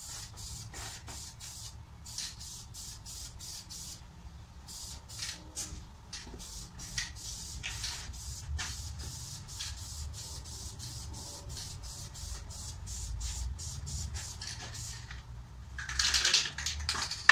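Aerosol spray can of high-heat ceramic engine paint hissing in many short bursts as a driveshaft is painted, with one longer, louder spray about a second before the end.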